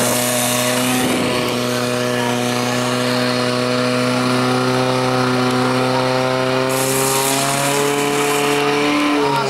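Portable fire pump's engine running at full revs, a loud steady high-revving drone, driving water through the attack hoses. Its pitch creeps up slightly in the last few seconds, then starts to drop right at the end.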